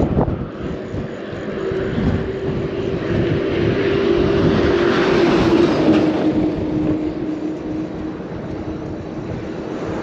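Highway traffic on the bridge roadway: tyre and engine noise swelling to a peak about five to six seconds in as a vehicle goes by, with a steady hum that drops slightly in pitch as it passes. A brief knock right at the start.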